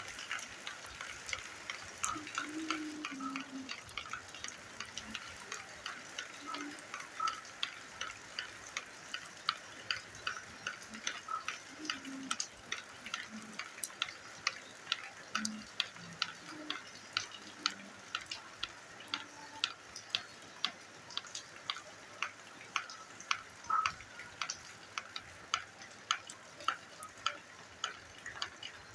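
Rainwater dripping onto the ground: a light, steady patter with sharp single drops ticking through it. The drops grow more regular after the middle, about two a second near the end.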